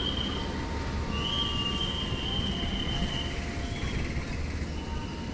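Passenger train moving slowly along the station track: a low, steady rumble with thin, high wheel squeals from the rails that come and go for a second or two at a time.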